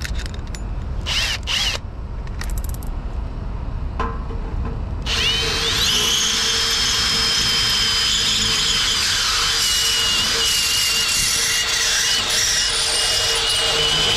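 A few clicks as a step drill bit is fitted into a cordless drill's chuck. About five seconds in, the drill spins up with a rising whine and then runs steadily, the step bit cutting a hole through a chrome truck bumper, before it stops at the end.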